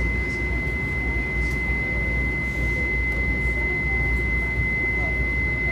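Inside an MTA light rail car standing at a platform: a steady single high-pitched tone rings without a break over a constant low rumble from the car's equipment.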